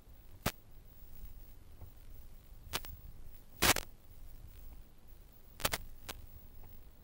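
About six sharp clicks at irregular intervals over a faint low rumble, the loudest and longest a little past the middle, with two close together near the end.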